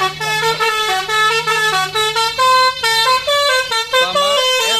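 Tour bus's multi-tone 'telolet' air horn playing a rapid tune of stepped notes, loud and continuous. A low steady hum sits beneath it for about the first three seconds.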